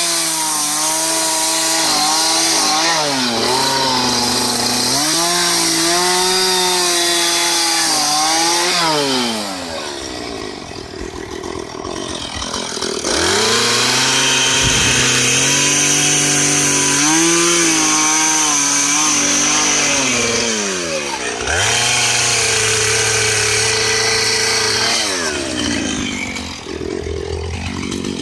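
Two-stroke chainsaw cutting into a wooden log at high revs, its engine pitch sagging and recovering as the bar bites. It drops back to idle about a third of the way in, revs up again to cut, and falls to idle once more near the end.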